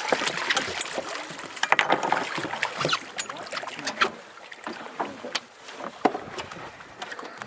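Wind and sea noise aboard a fishing boat, with many short knocks and clicks, growing quieter over the first few seconds.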